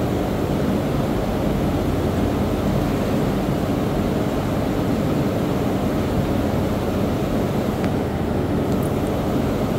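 Large misting fans cooling the enclosure, running with a steady low rushing drone.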